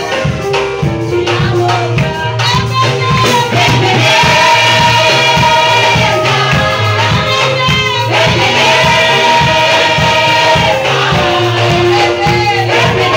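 Gospel praise singing: a lead singer on microphone with a group of voices, over loud amplified band music with a steady drum beat and bass.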